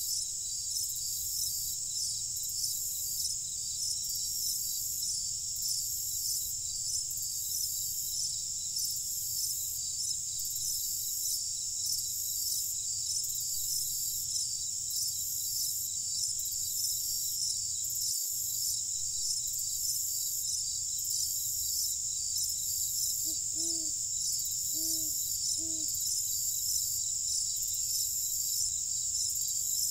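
A night chorus of crickets: a dense, steady, high-pitched chirring with a regular pulse. About two-thirds of the way through, three short low hoots sound over it.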